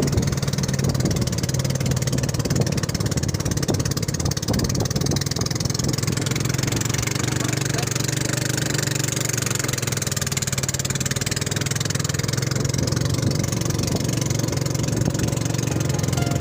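Small fishing boat's tiller-steered engine running steadily at cruising speed, with a hiss of wind and water over it.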